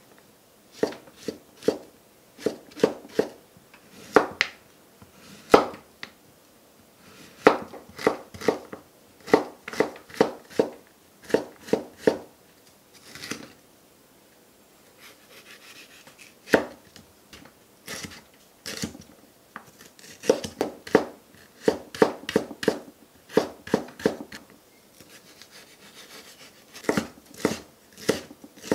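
Chef's knife chopping mushroom and bell pepper on a wooden cutting board: runs of quick, sharp knocks as the blade strikes the board, with brief pauses between runs.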